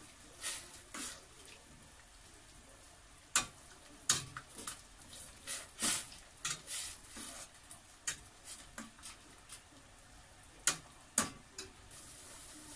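Metal spoon and utensil stirring and clinking against a stainless-steel pot of water as onion and leafy greens blanch, with scattered sharp knocks and scrapes over a faint steady hiss.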